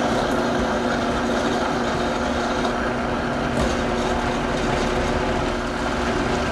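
Countertop blender motor running steadily with a constant hum, pureeing chickpeas, tahini, garlic, lemon and parsley into a thick hummus paste.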